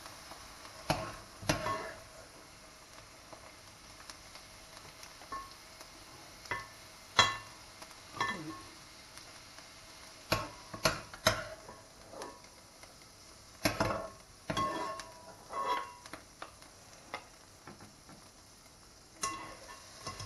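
Wooden spoon and metal spoon knocking and scraping against a metal mesh strainer and a pot while a spinach and prawn filling is pressed to drain it: about a dozen irregular knocks, some with a short metallic ring, over a faint steady sizzle from the hot pot.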